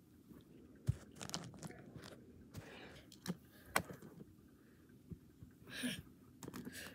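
Hands moving plastic toy animal figures over a shag carpet close to the microphone: scattered small clicks, taps and rustles, with a sharper click about 1 s in and a few more near 3.5 s and 6 s.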